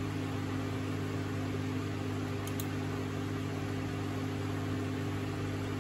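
Steady low machine hum: several held low tones over a faint hiss, with two faint clicks about two and a half seconds in.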